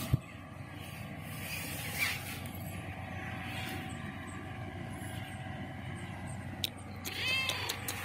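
A black-and-white domestic cat meowing once near the end, a short meow that rises and falls in pitch, begging for food. A sharp tap sounds just at the start, over a steady low hum.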